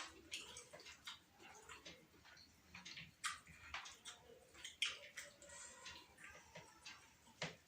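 Quiet eating sounds: wet mouth clicks and smacks at irregular intervals while biryani is eaten, a few of them sharper than the rest.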